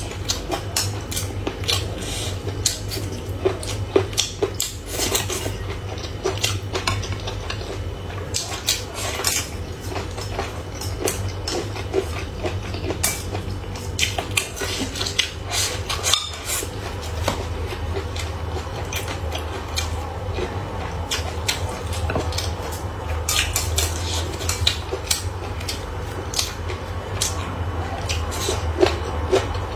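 Chopsticks and utensils clicking and clinking against bowls and plates while eating: many light, irregular clicks, over a steady low hum.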